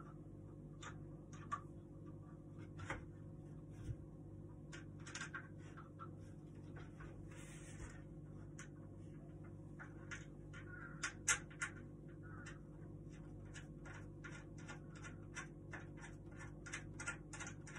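Small clicks, taps and scrapes of hands and a tool working on a wooden table's frame and legs during assembly, becoming a quick, fairly regular run of ticks, about three a second, in the second half. A steady low hum runs underneath.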